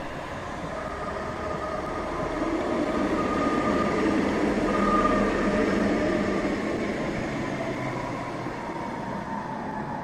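Tatra tram set of three yellow cars passing on street track: a rolling rumble of wheels on rail with a steady humming tone from the drive. The noise swells to its loudest about halfway through and then fades, the hum dropping in pitch as the tram moves away.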